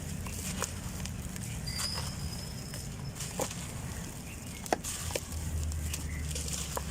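Dry black sand-cement lumps crumbling: a scattering of sharp little cracks and snaps, the sharpest about two-thirds of the way through, over a low steady rumble.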